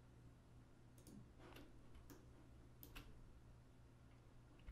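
Near silence with a handful of faint, sharp computer mouse clicks, about five or six spread over four seconds.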